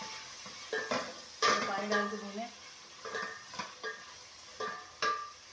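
A spoon stirring thick masala in a stainless steel pot, knocking and scraping against the pot's side about nine times; each knock sets the steel ringing briefly.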